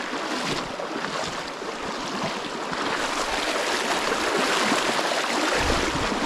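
Shallow, rocky mountain stream rushing steadily close by. A low rumble comes in near the end.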